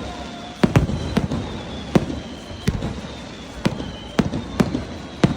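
Fireworks bursting overhead in quick, irregular succession: about a dozen sharp bangs in a few seconds, some in close pairs.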